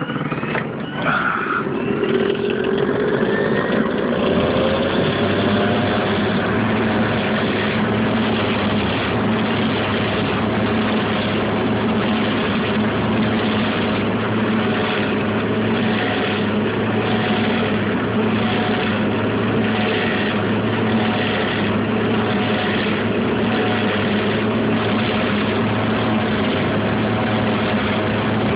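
Fisher & Paykel SmartLoad clothes dryer starting up: the motor's pitch rises over the first few seconds as it spins up, then it runs steadily with a noise that pulses about once a second. The owner traces the noise to the belt tensioner pulley.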